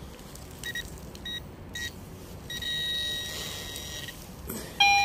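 Metal detector beeping on a buried metal target: three short beeps, then a steady tone of about a second and a half, then a louder beep of a different pitch near the end.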